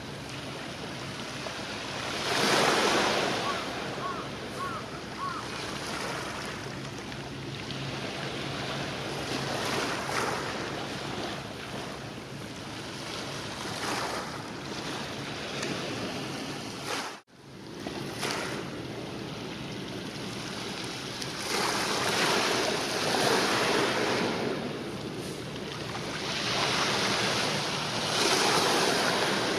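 Small waves washing against the shore, with wind on the microphone; the wash swells loudest about two seconds in and again twice in the last third.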